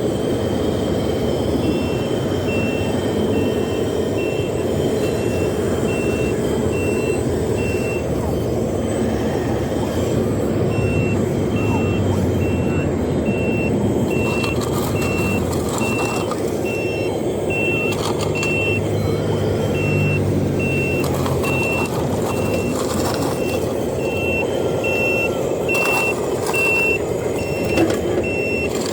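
Reversing beeper of a radio-controlled model truck: a steady run of short, high, evenly spaced beeps that pauses for a few seconds about a third of the way in, over a continuous low running noise.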